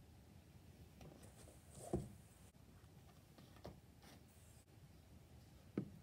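Books and small objects set down on a shelf: a few soft knocks, the loudest about two seconds in and a sharp one near the end, with light sliding and rubbing between.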